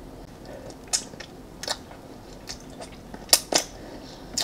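Close-miked chewing of a chocolate-coated coconut ice-cream bar: a string of sharp wet mouth clicks and crackles, about eight of them, the loudest a little over three seconds in.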